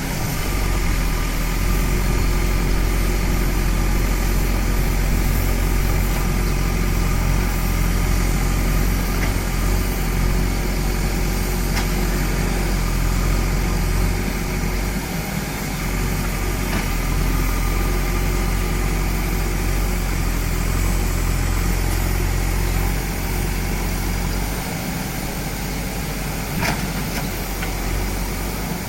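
JCB backhoe loader's diesel engine running steadily with a deep drone, easing off somewhat about halfway through and again near the end, with a brief click near the end.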